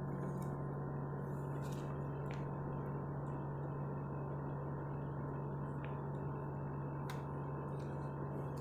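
A steady low hum with an even hiss behind it, and a few faint ticks scattered through.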